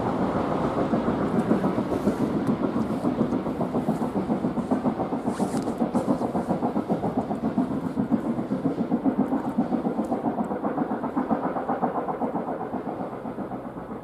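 Exhaust beats of the LMS Black Five two-cylinder steam locomotive 45407, coming in a rapid, even rhythm as it works the Jacobite train up to the summit of a bank. The beats grow fainter over the last few seconds as the locomotive draws away.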